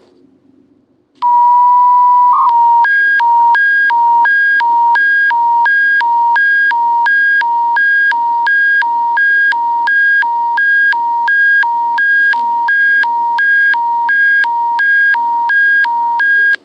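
Alberta Emergency Public Warning System broadcast alarm tone, the attention signal that comes before a warning message. About a second in, a steady electronic tone sounds for a second and a half. It changes into a two-tone warble, a high and a low beep alternating about three times a second, which runs for about thirteen seconds and cuts off suddenly. A faint broadcast hum lies underneath.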